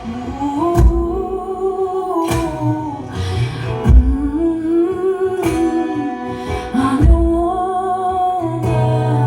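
Live song: a woman's wordless vocal line, hummed or sung without words, gliding between long held notes over guitar. Low thumps mark the beat about every one and a half seconds, and a steady low note comes in near the end.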